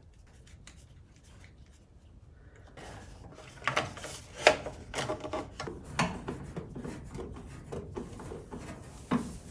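Hand work on a tractor engine: a rubber air-intake duct is pulled free and handled, with rubbing and scraping and a string of sharp knocks and clunks against plastic and metal parts. The loudest knock comes about four and a half seconds in, and there is another just before the end.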